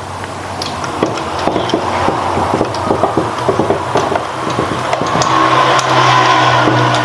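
Handling noise of a rubber anode cap being worked onto the anode connector of a CRT television's picture tube: rubbing and many small clicks and taps of the cap, lead and fingers against the glass. About five seconds in, a steady hum grows louder underneath.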